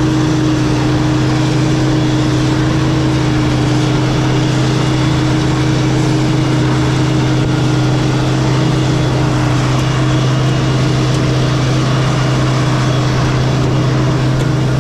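A 48-year-old Mack truck's diesel engine running loud and steady at a constant speed: a low drone with a steady hum above it.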